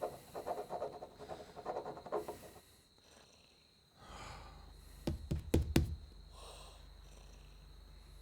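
House noises at night: a quick, regular rasping for the first two and a half seconds. Then a low hum starts, and three sharp knocks come in quick succession about five seconds in.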